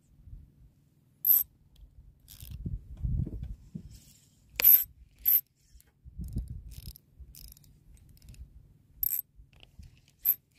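Tridentech Killer 20 spinning reel being worked on a squid-jig retrieve: about half a dozen sharp metallic clicks at uneven intervals, with low rumbling between them.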